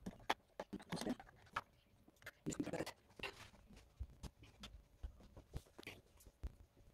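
Faint, scattered light clicks and taps of miniature doll-size kitchenware being handled and set into a small dollhouse cupboard.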